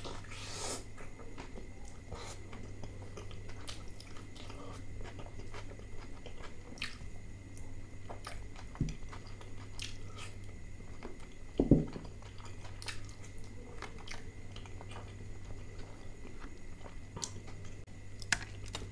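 Close-up mouth sounds of a person biting and chewing pieces of chicken in curry, with wet smacks and small clicks over a steady low hum. Two dull thumps stand out, the louder about twelve seconds in.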